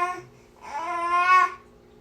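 Infant crying in short, fussing wails: the end of one cry at the very start, then a second cry of about a second, each followed by a pause.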